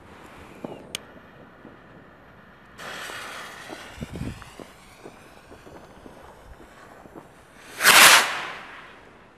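Small sky rocket: its fuse hisses and sputters from about three seconds in, then near the end the rocket launches with a loud rushing whoosh that fades as it climbs.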